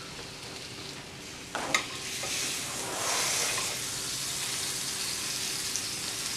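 Beef burger patties sizzling as they fry, with one sharp clack about two seconds in, after which the sizzle swells louder for a second or so before settling back to a steady hiss.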